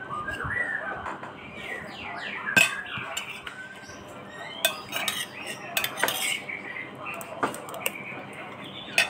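A metal spoon clinking and scraping on a plate while scooping rice, with several sharp clinks spread through.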